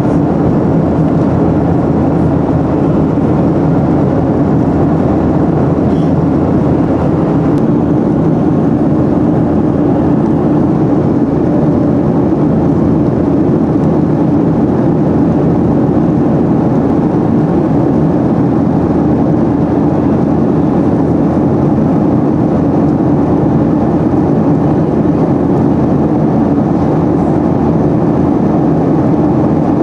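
Steady cabin noise of a Boeing 737-800 in flight: its CFM56-7B turbofan engines and the rush of air over the fuselage, heard from inside the passenger cabin, loud and unchanging.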